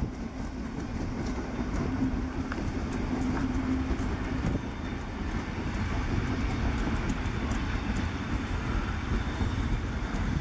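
Passenger train rolling past behind a steam tank locomotive, a Prussian T 13: a steady rumble of coach wheels on the rails with scattered light clicks. A steady low tone runs through the first four seconds.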